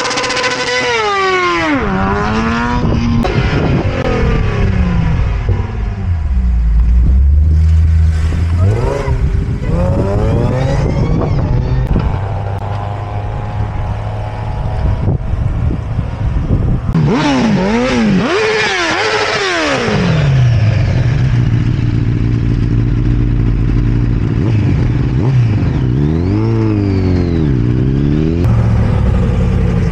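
Motor vehicles pulling away one after another: a sport bike's engine revs up and drops back with each gear change as it leaves. Other engines follow, with another run of rising and falling revs about two-thirds of the way through and a steady engine drone near the end.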